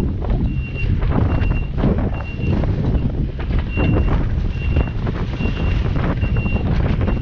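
Travel alarm of a Komatsu PC20MR-2 mini excavator beeping at one steady high pitch, about once every 0.8 seconds, over the machine's running, with heavy wind buffeting on the microphone.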